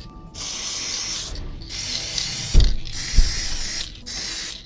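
Aerosol spray oil hissing in about four short bursts, oiling stored nuts and bolts to keep them from rusting. Two dull thumps about halfway through are the loudest sounds.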